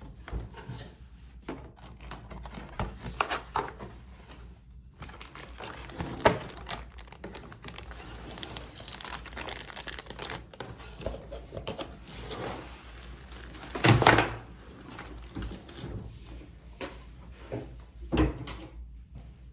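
Shipping packaging being torn open and handled by hand: continuous crinkling and tearing, with three louder moments about 6, 14 and 18 seconds in, the one near 14 seconds lasting about a second.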